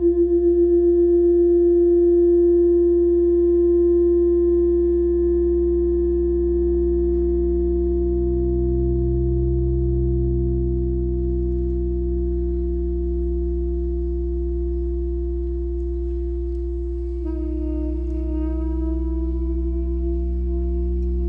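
Live electronic drone music: a steady pitched tone with a few overtones over a deep low hum. Near the end a second tone comes in and slowly rises in pitch.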